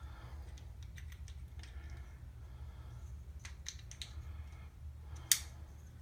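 Light clicks and faint scraping of a toilet flush handle's mounting nut being fiddled onto its threaded shank inside the tank, with one sharper click about five seconds in, over a low steady hum.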